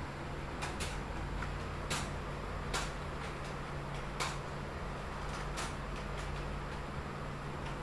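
Keys on a Logitech computer keyboard pressed one at a time: about six sharp clicks, spaced roughly a second apart, over a steady low hum.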